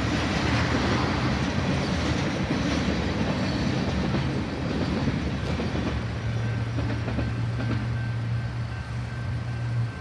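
Freight train cars rolling past, wheels clacking on the rails. A steady low hum sets in about halfway through and stops at the end, with a faint thin high whine alongside it. The sound eases as the last cars clear.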